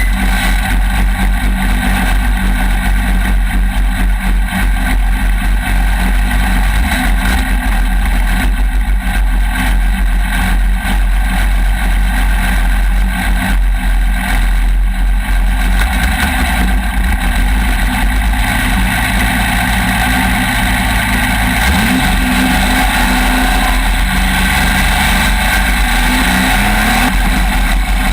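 Off-road race vehicle engines running loudly and steadily, with a couple of rising revs in the second half.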